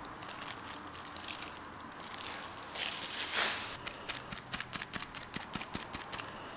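Light clicks and crackles of hand handling, a plastic-gloved hand setting a garnish on a plate, with a louder rustle about three seconds in.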